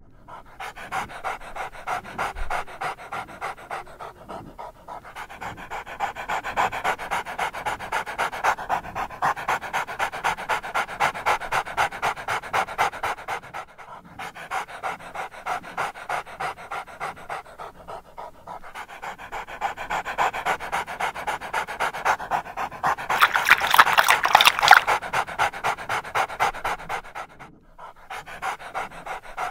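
Golden retrievers panting: quick, rhythmic breaths in several runs broken by short pauses, loudest a little past two-thirds of the way through.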